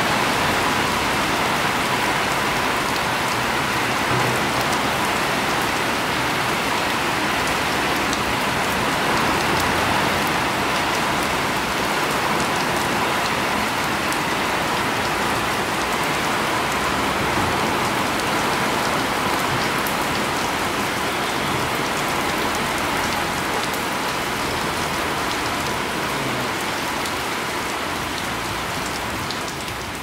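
Heavy rain falling steadily, splashing on wet ground.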